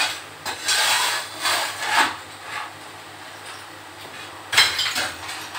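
Broken brick and plaster rubble being scraped up off a hard floor and tossed onto a heap: several rough scraping strokes in the first two seconds, then a sharp clatter of debris landing about four and a half seconds in.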